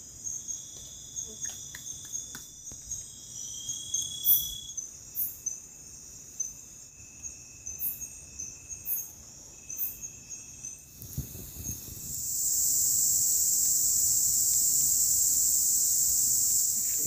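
Night-time forest crickets chirping in a steady, pulsing high chorus, with a few faint clicks and knocks. About twelve seconds in, this gives way to a louder, steady, high-pitched insect drone from daytime forest.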